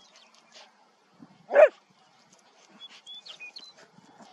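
A dog playing with another dog gives one loud play bark about a second and a half in, with faint short high chirps later on.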